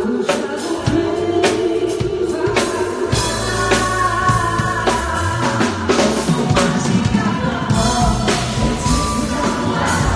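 A woman singing into a handheld microphone over a band with drum kit and bass, amplified through a stage sound system.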